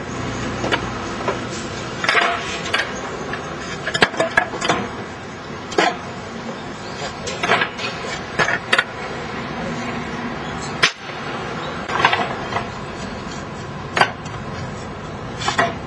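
Pieces of scrap wood dropped into a metal drum furnace, knocking and clattering about a dozen times at irregular intervals over a steady background hum.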